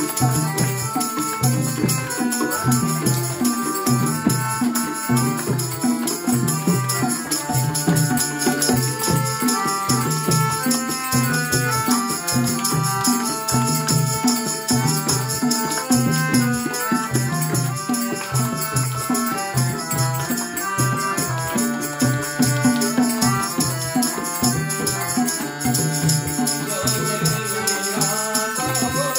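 Nepali devotional bhajan-kirtan music: a steady drum beat with a constant high shimmer of hand percussion over it, and a melody moving in held notes.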